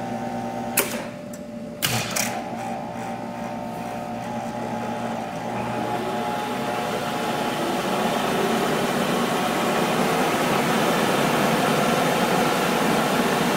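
Monarch 10EE lathe spindle and its DC drive running forward, speeding up to about 3,000 RPM: a steady mechanical running sound that grows louder from about four seconds in and then holds steady. Two clicks come near the start as the controls are worked.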